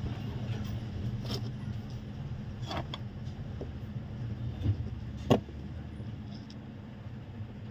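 Steady low electrical hum from repair-bench equipment, with a few sharp light clicks and taps of small tools on the phone board. The loudest tap comes about five seconds in.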